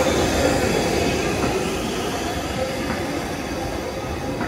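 Steam-hauled train of vintage wooden passenger carriages rolling past at low speed, wheels rumbling on the rails with a few faint knocks, the sound slowly fading.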